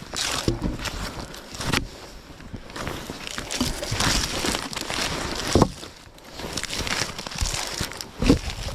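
Rustling and crunching with three sharp knocks, about two, five and a half, and eight seconds in; no chainsaw running.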